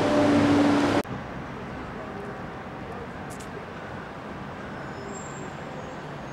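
A metro train in a station hums and rumbles with a steady whine, and the sound cuts off abruptly about a second in. After that comes quieter, steady open-air city ambience with distant road traffic.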